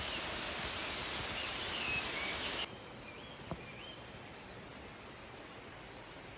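Rainforest ambience: a steady hiss with a high, even insect drone that cuts off abruptly about two and a half seconds in. Quieter background follows, with a few short whistled bird calls that rise and fall in pitch.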